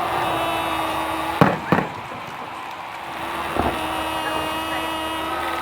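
Fireworks bursting in sharp bangs: two close together a little over a second in, and another about two-thirds of the way through. A steady pitched tone runs under them for most of the time, breaking off briefly in the middle.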